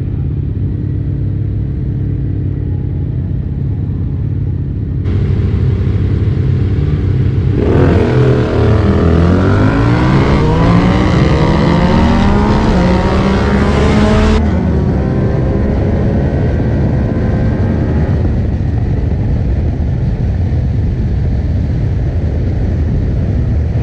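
Motorcycle engine running steadily, then launching hard about seven seconds in and revving up through several gears, its pitch climbing again after each shift, before settling to a steadier, slowly falling note.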